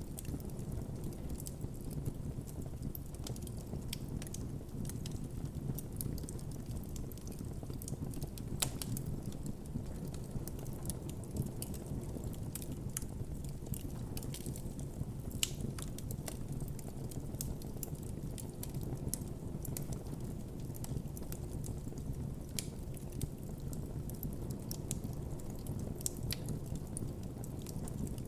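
Campfire of burning wood crackling, with many small sharp pops scattered irregularly over a steady low rumble of the flames.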